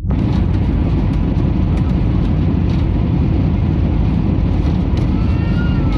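Loud, steady roar inside an airliner cabin during landing: engine and airflow noise with a heavy low rumble, coming in abruptly at the start.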